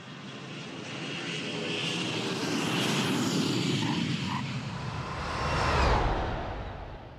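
Boeing 737's twin jet engines on final approach, growing steadily louder as the airliner comes in close and passing loudest about six seconds in. As it goes by, the engine whine falls in pitch and the sound starts to fade.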